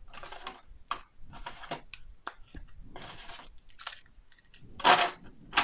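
Rustling and scraping of board-game components being handled and lifted out of their box, in short irregular bursts, the loudest about five seconds in.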